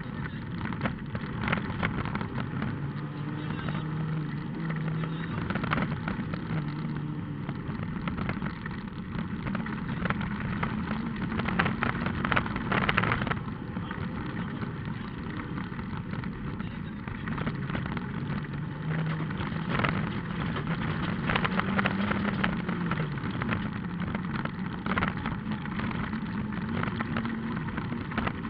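Rally car's engine running under load, heard from inside the cabin, its pitch rising and falling as the driver works the throttle and gears. The car knocks and rattles over rough gravel, with a few harder bangs.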